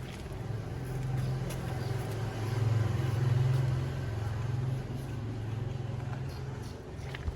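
A motor vehicle's engine passing by, a low hum that grows louder over the first few seconds and then fades away.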